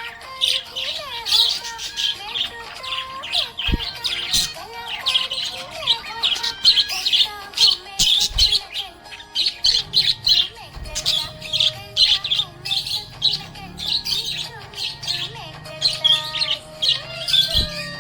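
Budgerigars chirping and warbling in quick, busy bursts, over background music.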